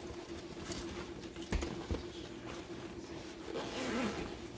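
Zipper on a fabric camera bag being pulled open in scratchy strokes, with the bag rustling against a cardboard box.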